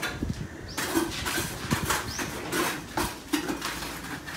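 Steel trowel scraping and knocking against a plastic bucket and a flat board as wet mortar is scooped up for plastering, with a few sharp knocks among the scraping.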